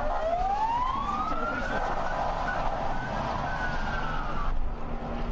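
Emergency vehicle siren wailing: its pitch rises over the first two seconds, holds high, then breaks off sharply about four and a half seconds in.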